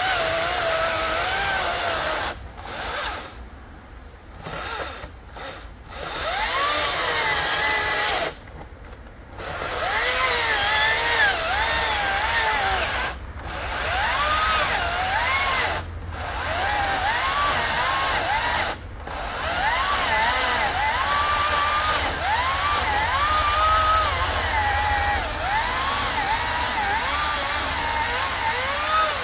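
Battery-powered chainsaw cutting through a thick log. The electric motor's whine keeps rising and sagging as the chain bites and bogs in the wood. The saw eases off a few times, twice for a couple of seconds in the first ten seconds, then only briefly.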